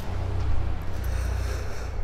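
A low, steady droning soundtrack with faint high tones coming in about halfway through: ambient film music.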